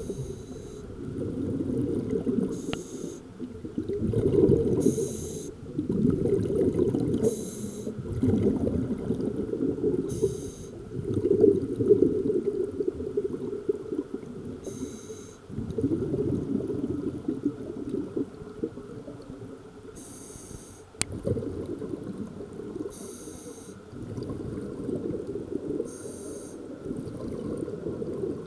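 Scuba diver breathing through a regulator underwater, breath after breath. Short hisses every few seconds alternate with the low bubbling rumble of exhaled air.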